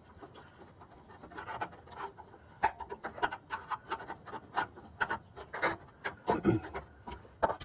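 Flathead screwdriver scraping and prying at the fuel filter and line, working them out of their holder on the truck frame: irregular scrapes and clicks of metal on metal and plastic.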